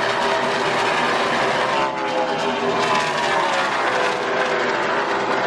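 A pack of NASCAR Cup Series stock cars running at speed, their V8 engine notes falling in pitch one after another as the cars pass.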